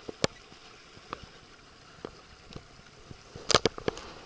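Small waves slapping against a boat hull over a low wash of water: a few single sharp slaps, then a quick run of loud ones about three and a half seconds in.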